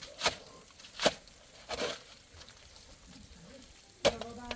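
Three sharp knocks, a little under a second apart, then a short pitched call begins with a sudden onset near the end.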